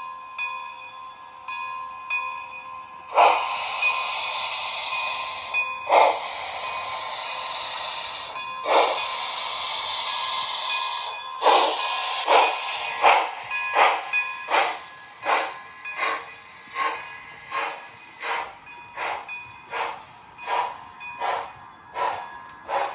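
Model steam locomotive sound from a TCS WOW Sound V4 decoder, played through the locomotive's small speaker. After a few faint chuffs come three long hissing blasts, then separate exhaust chuffs that speed up as the locomotive pulls away, over a faint steady tone.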